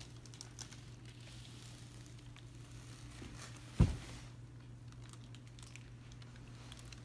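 Quiet room with a steady low hum, broken by one sharp thump a little under four seconds in.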